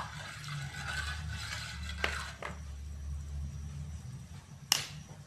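A spoon stirring orange-coloured water in a steel pot on a gas burner, with a swishing of liquid in the first two seconds and a couple of light knocks of the spoon about two seconds in, over a steady low hum. A single sharp clink near the end is the loudest sound.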